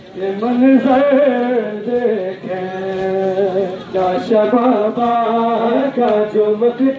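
Men's voices chanting a noha, a Shia lament of mourning for Husayn, in drawn-out, wavering sung lines with short breaks between phrases.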